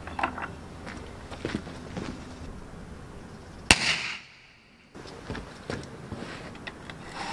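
A fuse firecracker going off inside a plastic bottle: one sharp bang a little under four seconds in, with a short ringing tail. Smaller knocks and clicks come before and after it, from handling the bottles and a lighter.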